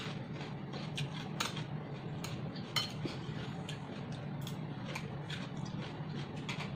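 Metal chopsticks clicking and scraping against a glass salad bowl as pieces are picked up, in irregular sharp clicks with a few louder ones, over a steady low hum.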